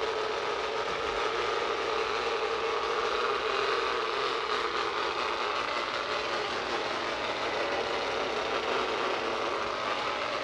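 Ecovacs Deebot robot vacuum running as it moves across a hardwood floor, a loud, steady whirring with a held droning tone. This is a horrible noise from a worn unit with a lot gone wrong with it.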